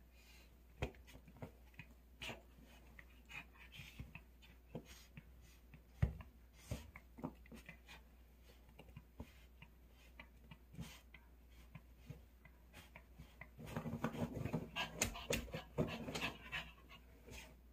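Poodle rummaging in bed blankets: soft fabric rustling and scattered light taps and scratches from its paws and nose. There is a sharper knock about six seconds in, and a busier, louder spell of rustling for a few seconds near the end.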